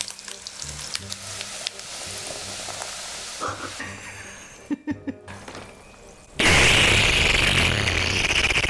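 Coca-Cola poured from two cans into a large paper cup of ice, fizzing and crackling with carbonation. About six and a half seconds in, a loud, steady slurp starts as the cola is sucked up through a straw.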